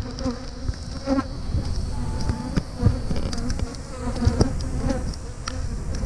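Honeybees buzzing close around the camera, many short hums coming and going as they fly past, with scattered sharp ticks. Wind rumbles on the microphone underneath.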